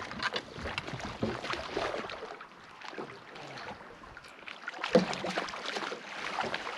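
Water lapping and slapping against a bass boat's hull, with scattered clicks and knocks of a landing net and fishing rod being handled on the deck as a hooked fish is played; one sharp knock about five seconds in.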